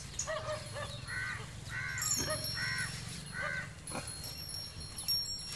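A crow cawing four times in a steady series, a little under a second apart.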